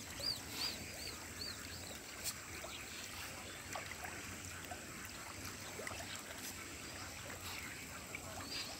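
A small bird chirping a quick run of short, high calls in the first second or so, over a steady soft hiss of outdoor ambience, with a few faint clicks.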